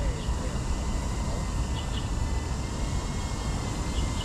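Steady low rumble of outdoor background noise, with faint steady high hums and a few short, faint high chirps now and then.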